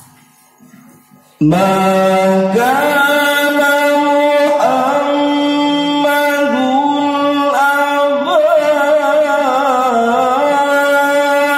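A man reciting the Quran in the melodic tilawah style. His voice comes in suddenly about a second and a half in and holds long notes, with ornamented turns that slide between pitches.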